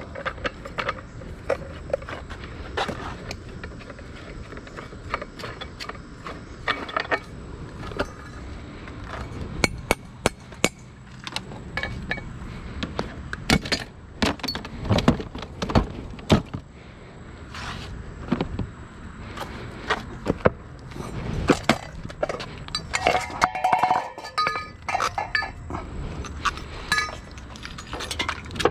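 Irregular clatter of hard objects being handled and knocked together: many separate knocks and clinks at uneven intervals, with brief louder bangs around the middle.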